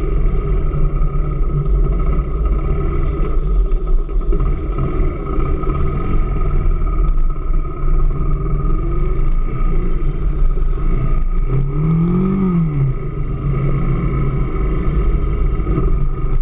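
AKT DS200 motorcycle engine running steadily, with one brief rev that rises and falls about twelve seconds in.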